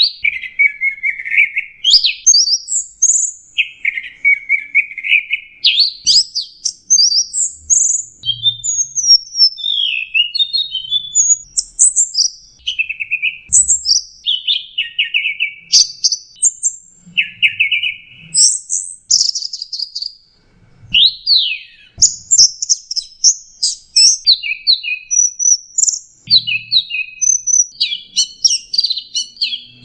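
Orange-headed thrush singing a continuous, high-pitched song of quick, varied phrases that follow one another almost without a break, with one short pause about twenty seconds in.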